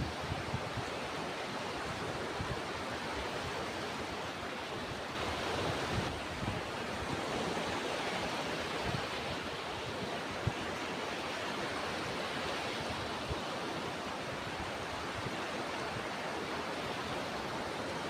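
Ocean surf: a continuous wash of breaking waves that swells briefly around five seconds in, with a few low thumps.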